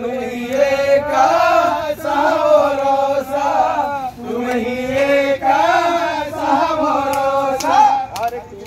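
A group of men's voices chanting together in loud, drawn-out calls that rise and fall, with short breaks between phrases.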